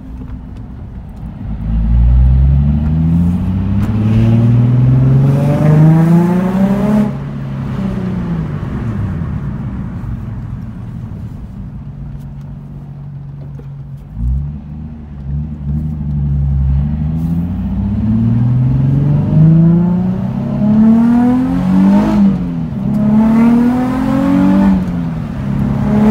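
Nissan 350Z's 3.5-litre V6 through a single-exit catback exhaust, heard from inside the cabin while the car accelerates. The note rises in pitch for about five seconds and drops, then settles to a steady low drone with a short rev about halfway. From about 16 seconds it climbs and drops again several times in quick succession as the car shifts up through the gears.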